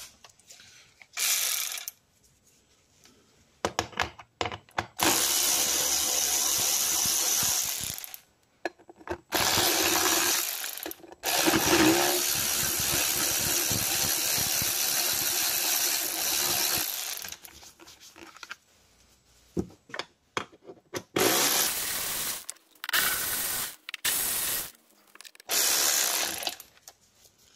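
Power drill-driver with a 6 mm hex bit spinning out engine cover bolts. It runs in several bursts, the longest about six seconds, with short bursts near the end.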